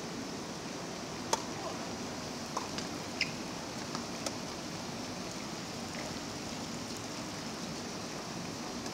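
Tennis rally on a hard court: a handful of short, sharp pops from the ball being struck by racket strings and bouncing, the loudest about a second in, over a steady hiss.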